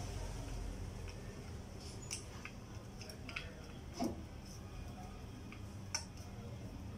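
Screwdriver driving in the flywheel-cover screws on an AKT NKD 125 motorcycle engine: a handful of light, irregular metallic clicks and taps as the tool and screws work against the metal cover, the loudest about four seconds in, over a low steady hum.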